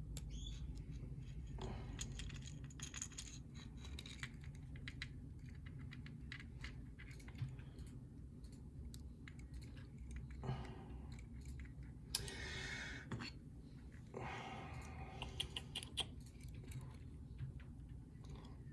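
Light metallic clicks, taps and small rattles of a pin-tumbler mortise lock cylinder being taken apart by hand, its core and pins being removed, with a few short scraping sounds.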